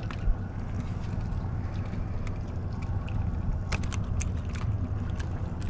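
Boat motor idling as a steady low rumble, with a few light clicks from the hook and fish being handled.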